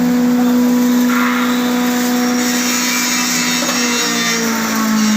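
Wood chipper running with a steady hum and a rough grinding noise; the hum dips slightly in pitch about four seconds in.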